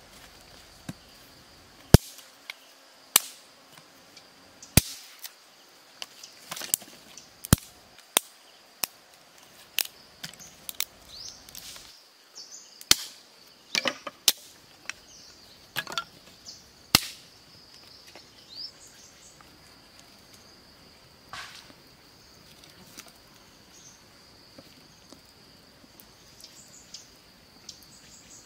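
Dry wooden sticks snapping and knocking, sharp single cracks at irregular intervals, some in quick pairs, over a faint steady high insect drone.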